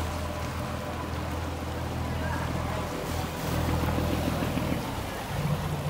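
Inboard engine of a wooden canal passenger boat running with a low steady drone over the wash of churned water; the engine note rises about five seconds in.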